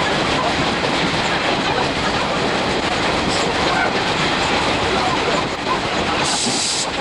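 A train running along the track, heard from inside a passenger coach of the SL Mooka steam train: a steady, dense rumble of the wheels on the rails. A brief hiss comes near the end.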